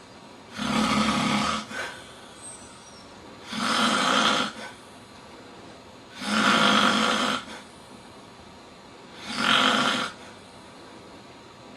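A man snoring loudly: four snores, each about a second long, coming roughly every three seconds.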